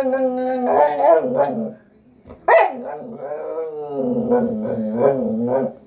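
Pit bull 'venting': long, wavering vocal grumbles, broken by a short pause and a sharp bark about two and a half seconds in.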